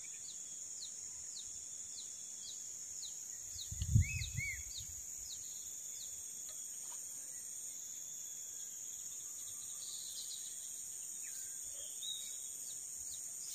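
Steady high-pitched insect drone, with a bird repeating short descending chirps about twice a second through the first half. There is a dull thump about four seconds in.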